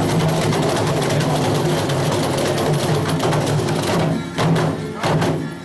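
Catira dancers' rapid stamping and clapping in a dense, steady clatter, with a guitar strummed underneath. The clatter breaks off briefly twice near the end.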